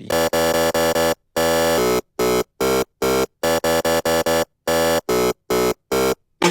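A Serum 2 synthesizer preset playing a chord stab pattern: short, hard-gated stabs in a syncopated rhythm, each starting and cutting off abruptly with silence between them.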